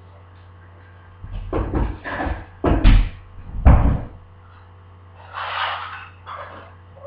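A series of loud thumps and knocks over about three seconds, the strongest two near the middle. They are followed a little later by a brief, softer rushing hiss.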